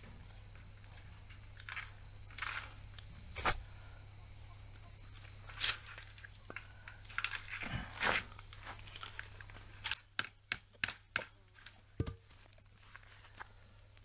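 Scattered clicks and knocks of hand work on a wire-mesh fence being stretched and fixed. About ten seconds in comes a quick run of five sharp knocks, roughly three a second.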